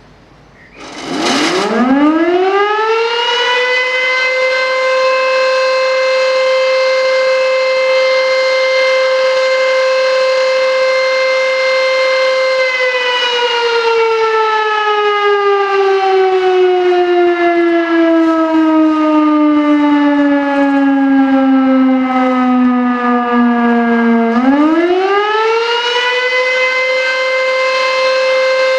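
VS6 high-tone fire siren with an 11-port rotor, built between 1920 and 1930 and presumably made by Dr. Rang, sounding the fire alarm signal: it spins up about a second in to a steady high tone, holds it, then falls in a long slow glide for about twelve seconds, and rises again to the steady tone near the end. The owner suspects the rotor turns the wrong way, adding air resistance so the siren does not reach its full volume.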